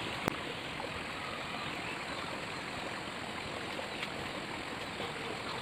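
Steady rushing noise of running water, with one sharp click shortly after the start.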